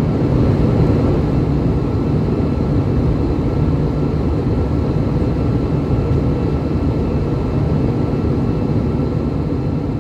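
Cabin noise inside an Airbus A319-115 in its climb: a steady, deep rush of airflow and CFM56 engine noise, with a faint steady whine above it.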